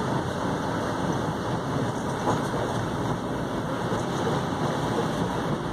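Steady running noise heard inside a Bombardier Flexity Outlook streetcar as it pulls away, an even rumble and hiss with no clear tone.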